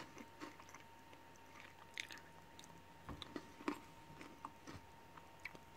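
Faint chewing of milk chocolate studded with crunchy caramel-biscuit pieces: a few soft crunches and mouth clicks, mostly in the middle of the stretch.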